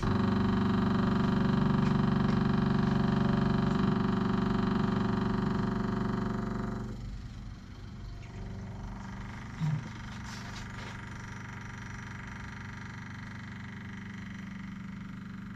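Electric fuel pump running with a steady buzzing hum as it draws gasoline through a hose. About seven seconds in the sound drops sharply, leaving a much quieter steady hum.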